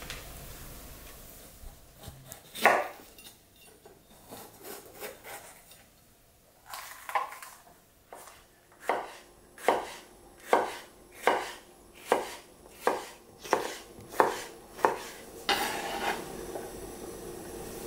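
Kitchen knife slicing a bell pepper into strips on a wooden cutting board. A few scattered knocks give way to an even run of blade-on-board knocks, a little more than one a second, and a short clatter follows near the end.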